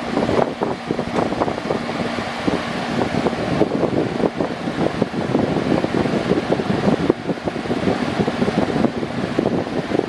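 Electric fan running: a steady rush of air with a rapid, uneven flutter, and a faint motor hum in the first couple of seconds.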